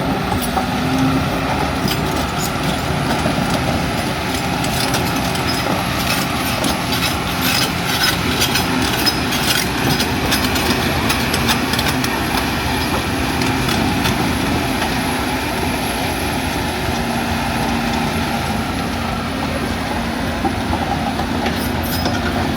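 LiuGong 942F excavator's diesel engine running steadily, with a run of clanks and knocks in the middle.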